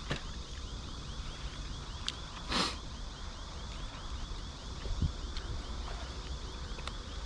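Steady high-pitched chirping, repeating about five times a second, with a short noisy rush about two and a half seconds in.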